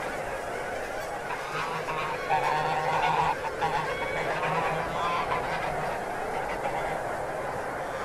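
A flock of greylag geese honking as it takes off, many calls overlapping into a dense clamour, loudest about three seconds in.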